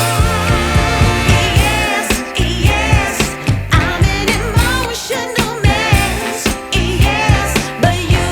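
Background music: a song with a vibrato-laden singing voice over a steady, pulsing beat.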